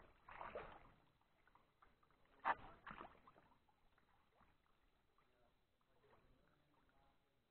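Kayak paddle blade dipping and pulling through calm water: a few splashy strokes in the first three seconds, the sharpest about two and a half seconds in, then near quiet.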